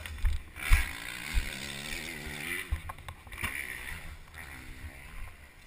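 Yamaha YZ125 two-stroke dirt bike engine running at low speed, its pitch rising and falling with the throttle, with wind thumping on a helmet-mounted microphone.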